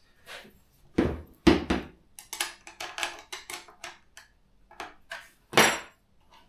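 A hand tool knocking and clicking against an electric chainsaw as it is fitted to the nut that holds the cover over the bar and chain. Two loud knocks come about a second in, then a run of lighter clicks, then one more loud knock near the end.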